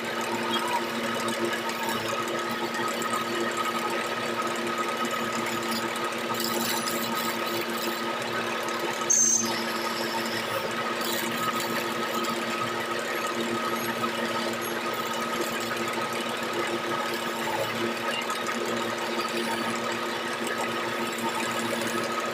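Wood lathe running with a steady hum while a hand-held chisel cuts along a spinning gamari-wood baluster. A short, sharper sound stands out about nine seconds in.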